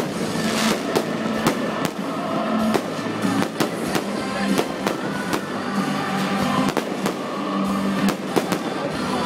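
Fireworks display: aerial shells bursting one after another, with many sharp bangs and crackles. Music plays underneath.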